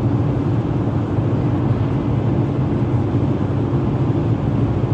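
Steady engine and road noise inside a moving car's cabin, a continuous low rumble with no breaks.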